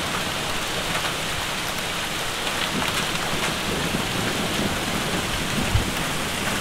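Hail and heavy rain coming down hard: a steady dense hiss with scattered sharp ticks of hailstones striking.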